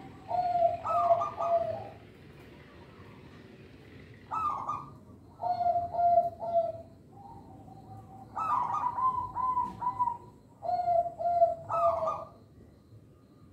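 Zebra dove (perkutut) cooing: about six phrases of short, rolling coo notes, each phrase a second or two long, repeated every couple of seconds.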